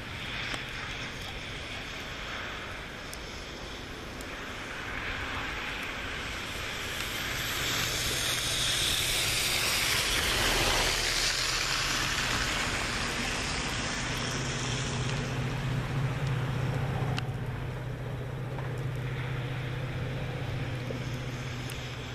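Storm wind noise that swells and eases about ten seconds in, with a steady low hum from a distant diesel push-pull commuter train coming in over the last third as it approaches.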